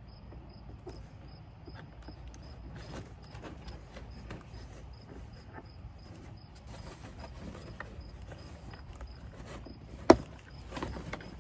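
Cardboard and plastic packaging rustling and knocking as a boxed animatronic part is worked out of its box, with one sharp click about ten seconds in. A faint high chirp repeats steadily underneath.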